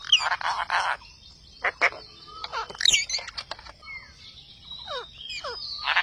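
Indian ringneck parakeets calling: a harsh squawk in the first second, then several short calls sliding down in pitch and a shrill burst about halfway, with another harsh squawk at the very end.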